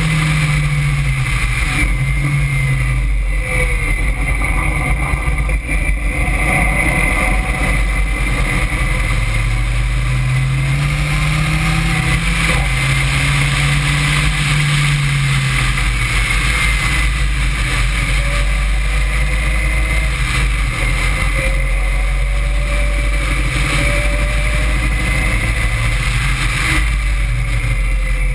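Caterham Seven sports car engine driven hard on track, its note rising and falling several times through the gears, under a constant rush of wind noise on the open-cockpit microphone.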